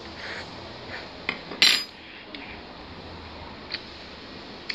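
Light clicks and knocks of plates and utensils on a table, with one louder, brief clatter about one and a half seconds in.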